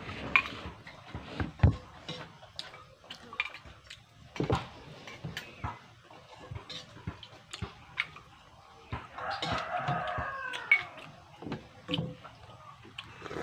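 A rooster crows once, about nine seconds in: a long call that falls in pitch at the end. Light clicks and taps from eating by hand off a plate come and go around it.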